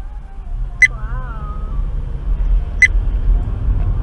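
A car driving, heard from a dashcam inside the cabin: a steady low rumble of engine and road noise. Two sharp clicks come about two seconds apart, and a brief wavering high sound follows the first.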